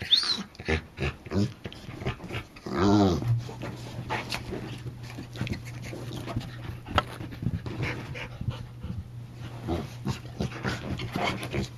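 A dog vocalizing: a high squeak at the start and one short moaning call about three seconds in, with panting and snuffling in between. A steady low hum comes on with the call and runs on.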